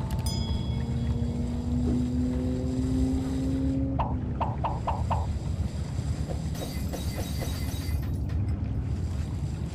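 Steady wind and water noise aboard a moving pedal kayak. Over it, a faint held tone rises slightly for about four seconds, then a quick run of five short high notes comes about four seconds in.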